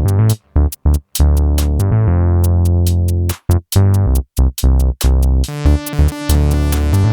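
Electronic music with a drum machine beat, synthesizer and deep bass, stopping and restarting in short stuttering breaks.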